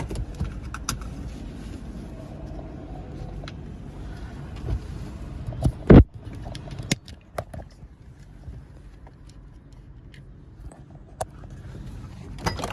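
Car interior noise while driving: a steady low road-and-engine rumble, with scattered light clicks and rattles and one loud sharp knock about six seconds in.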